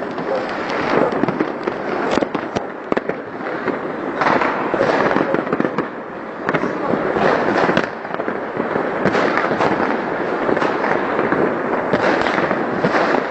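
Fireworks going off continuously: dense crackling and popping with many sharp bangs close together, one after another.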